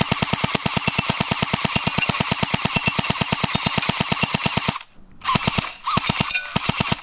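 Battery-powered electric airsoft submachine gun firing on full auto at about nine shots a second. One long burst of nearly five seconds is followed by a short pause, then a few shorter bursts. A brief rising motor whine marks the start of the bursts.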